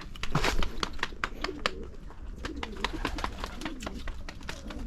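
Pigeons cooing several times, low wavering calls, over a steady patter of sharp clicks and taps.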